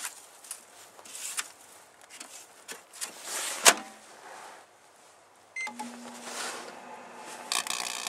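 Snow and a plastic bag rustling as the snow is emptied into a microwave oven, then the door shuts with a sharp clack a little before four seconds in. About five and a half seconds in, a short keypad beep sounds and the microwave starts running with a steady low hum. Near the end a crackling begins as the Christmas lights inside start to arc.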